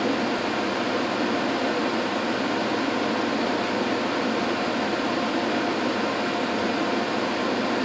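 Cooling fans of a Tektronix DPO7254 oscilloscope running while it boots: a steady whirring noise with a faint constant whine in it.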